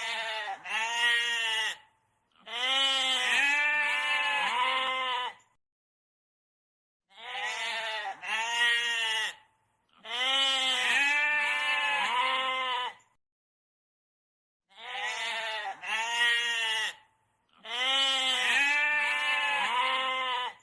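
Goat bleating: a short wavering bleat, then a longer quavering one, the same pair coming three times with silent pauses between.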